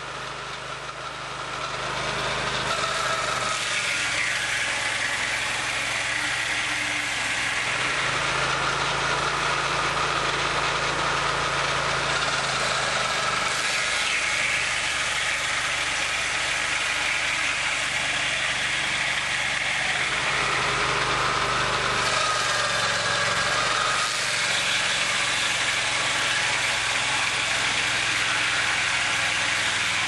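Timberline 4410 portable sawmill at work: its 30 hp Kohler gas engine runs steadily under load while the circular edger blades saw through a log, cutting a board. The sound grows louder about a second and a half in.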